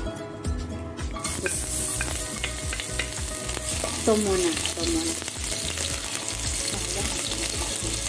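Chopped garlic dropped into hot cooking oil, sizzling steadily from about a second in as a wooden spatula stirs it around the pan.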